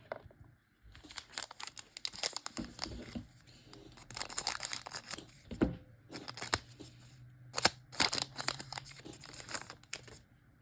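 A trading card pack wrapper being torn open and crinkled by hand, in a run of uneven rasping tears and crackles.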